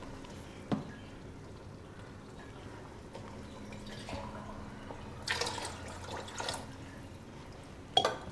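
Wooden spatula moving through chickpeas and masala in water in a pot, with brief splashing of the liquid and two sharp knocks, one under a second in and one near the end.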